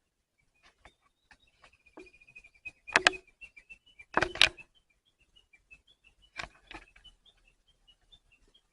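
Small bird calling outdoors: a thin held whistle, then a run of short high chirps. A few loud short noises break in, the loudest about three and four seconds in.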